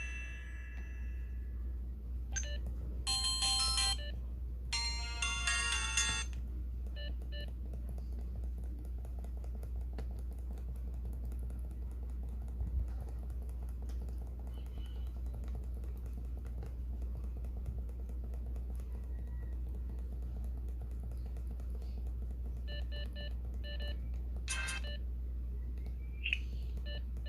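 Samsung SGH-T629 phone speaker playing short snatches of polyphonic ringtones, two quick bursts of tones in the first six seconds, then a few scattered groups of short beeps over a steady low hum.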